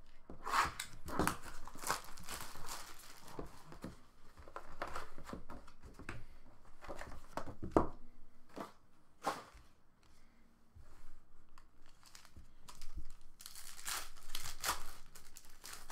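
Cardboard rustling and scraping as a Topps Chrome Black hobby box is opened and its foam insert handled. Near the end a foil-wrapped trading-card pack crinkles and tears open.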